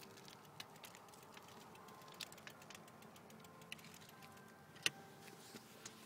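Footsteps crunching and snapping twigs on mulch, with scattered sharp clicks and one louder snap about five seconds in. Under them the faint hum of distant church bells fades away.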